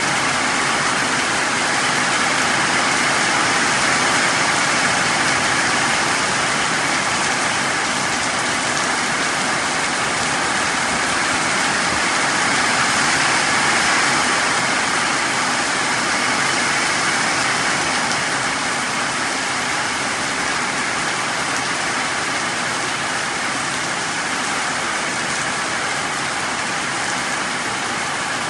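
Heavy rain pouring steadily onto foliage and puddled ground, a dense even hiss.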